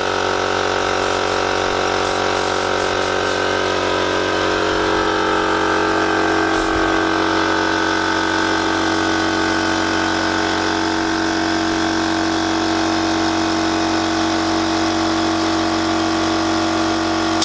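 Small portable piston air compressor running steadily as it pumps up its tank, a constant mechanical hum with a higher whine over it.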